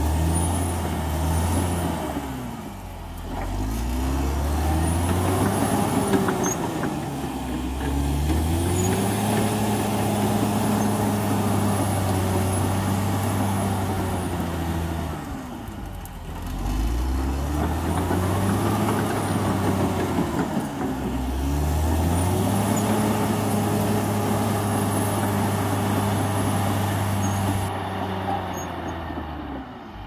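Caterpillar D6R XL bulldozer's diesel engine running hard, its pitch sagging and climbing back four times. A faint high whine rises and falls above it.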